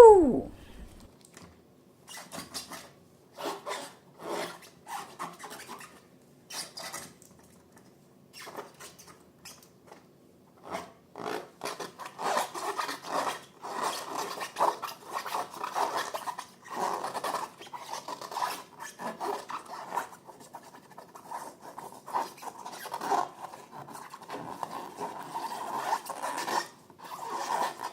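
Slime being worked by hand, making sticky crackling and squishing noises. These are scattered at first and nearly continuous from about eleven seconds in. A brief, loud falling squeal opens the stretch.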